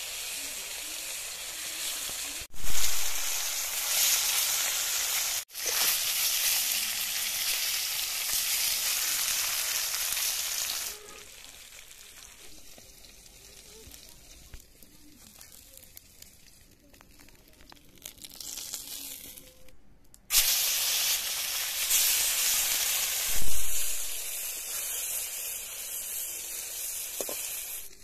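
Fish steaks sizzling as they fry in hot oil in a kadai. The sizzle is loud, drops to a quieter frying hiss for several seconds mid-way, then comes back loud, with a few abrupt breaks.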